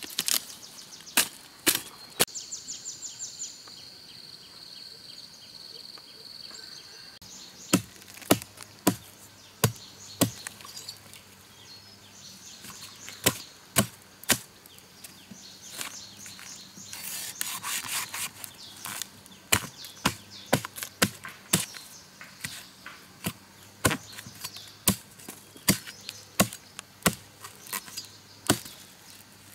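Palm tubers being chopped with a blade: sharp, irregular chops, some coming in quick runs of about two a second.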